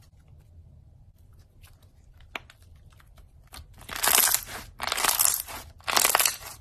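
Thick slime squeezed and worked by hand, giving scattered small sticky clicks and pops, then three loud crunchy crackles in quick succession as it is pressed down.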